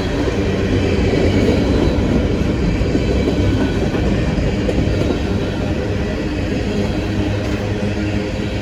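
Norfolk Southern diesel-electric locomotives working hard under load, pulling a heavy coal train away from a stop: a steady, loud engine drone with a high turbocharger whistle.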